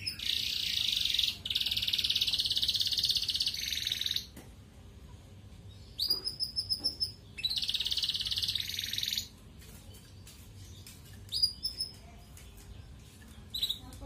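Domestic canary singing: three long, fast trills, the middle one about two and a half seconds long, with short sharp chirps and calls between them and in the second half.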